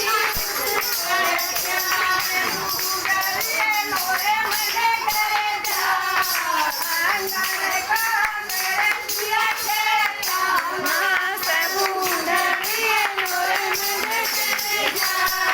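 Folk song sung in a wavering, melismatic voice over steady jingling hand percussion.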